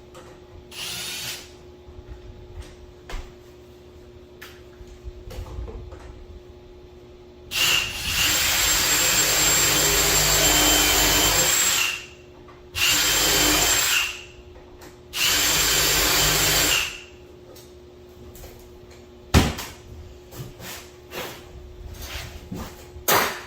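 Power drill running in three bursts, the first about four seconds long and the next two shorter, with a steady high whine. A sharp knock comes a couple of seconds after the last run, among light handling clicks.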